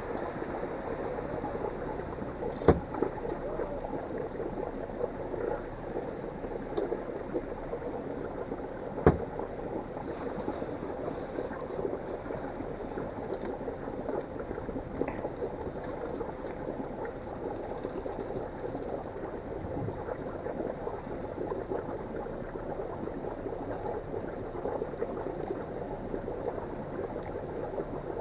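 Water sloshing and gurgling steadily, with two sharp knocks, one near the start and one about nine seconds in.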